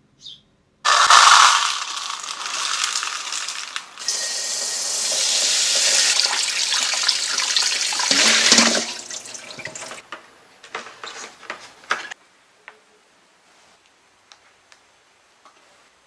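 Tap water running into a stainless steel colander of barley seeds as they are rinsed and stirred by hand; it starts suddenly about a second in and stops around nine seconds in. Then a few light clicks and rattles of the seeds and bowl being handled.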